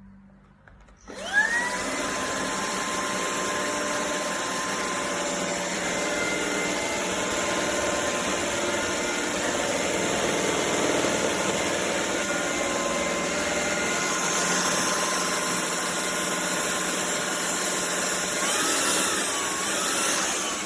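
Shark Stratos cordless stick vacuum switching on about a second in, its motor whine rising quickly to a steady pitch, then running steadily with a rush of air. Near the end the whine wavers up and down in pitch.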